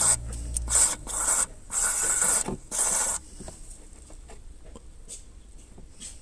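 Can of spray lubricant hissing in four short bursts into a car's speedometer cable to quiet a rattle behind the speedometer, followed by small clicks and handling noises.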